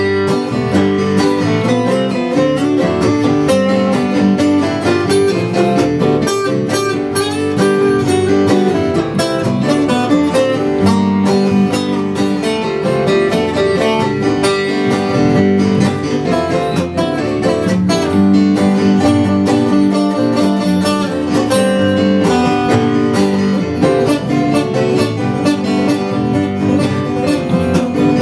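Acoustic guitar music, picked and strummed in a country/bluegrass style, playing steadily with no singing.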